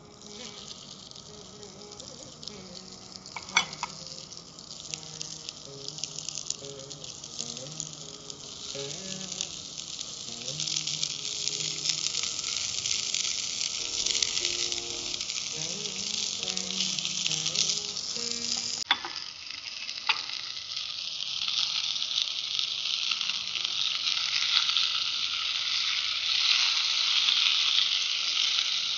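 Masala-stuffed okra pieces frying in hot groundnut oil in a cast-iron pan: a sizzle that grows louder as more pieces go in, with a couple of sharp clicks. Near the end a wooden spatula stirs them.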